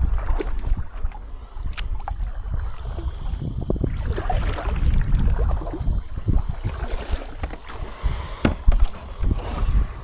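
Water splashing and lapping against the hull of a sailing kayak under way, in many short irregular splashes, over a steady low rumble of wind on the microphone.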